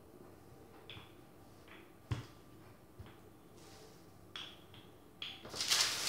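Kitchen handling sounds as pastry dough is flattened and readied for the baking pan: a few separate light knocks and taps, the firmest about two seconds in, then a short rustling scrape near the end.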